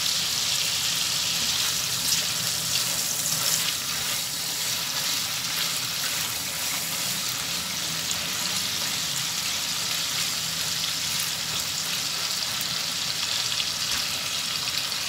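Strips of marinated chicken breast sizzling steadily in hot oil and butter in a frying pan over high heat, turned and stirred with a spatula.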